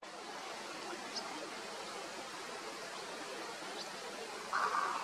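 Steady rushing wind noise on the microphone, growing louder near the end, with a few faint, short, high bird chirps.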